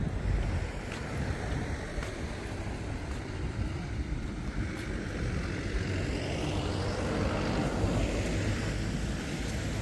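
A vehicle passing over a steady low outdoor rumble. Its noise swells from about six seconds in and eases off near the end.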